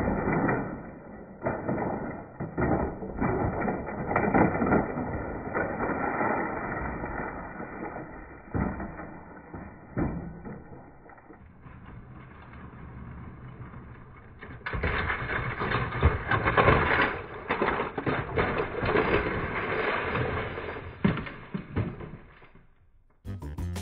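G-scale model train cars and a steam locomotive crashing and tumbling over the track and gravel ballast: a long, dense run of clattering knocks and scrapes, loudest a little past the middle. Music starts just before the end.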